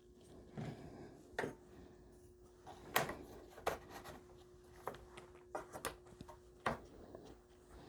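Copper pipe, fittings and tools being handled on a workbench during flux application and assembly: a series of light, separate clicks and knocks about a second apart, over a faint steady hum.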